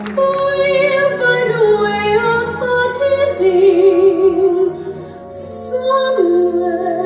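A slow song: a woman singing long, held notes with a wide vibrato over instrumental backing, the music for a ballroom show dance. The music dips briefly about five seconds in, then the singing resumes.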